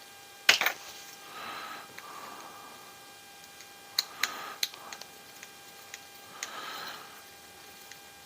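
Small hard parts and tools being handled while an RC crawler is taken apart. There are sharp clicks and taps, one cluster about half a second in and several more around four seconds in, with soft scraping sounds between them.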